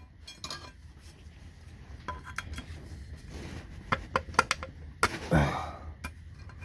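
Metal tools clicking and clinking against the screws driven into an engine's old rear main seal as it is slowly worked out. The clicks are scattered, with a quick run of them about four seconds in, and a short voiced grunt-like sound comes about five seconds in.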